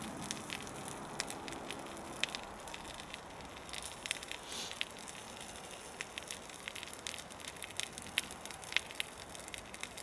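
Small wood fire crackling, with scattered sharp pops and clicks over a steady low hiss.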